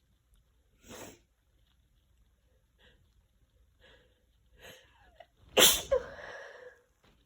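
A woman sneezing with a cold: a short breath about a second in, a few quiet breaths building up, then one loud, messy sneeze near the end with a brief voiced tail.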